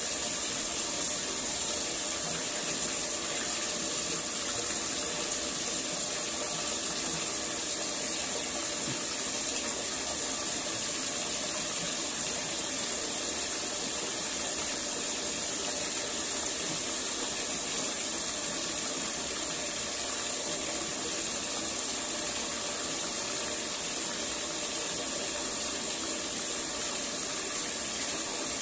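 Bathtub faucet running, a steady stream of water pouring from the spout into the tub.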